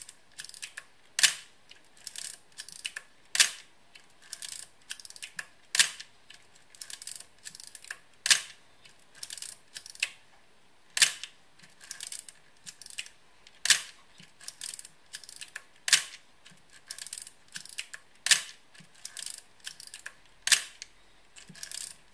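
Nikon FM10 film SLR's mechanical shutter firing about nine times, roughly every two and a half seconds. Each sharp shutter click is followed by a run of smaller clicks as the manual film-advance lever is wound.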